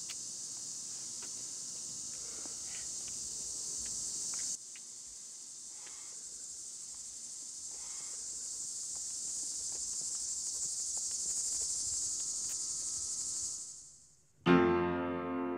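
A steady, high-pitched chorus of crickets, with a few faint clicks; it fades away near the end and a piano chord comes in.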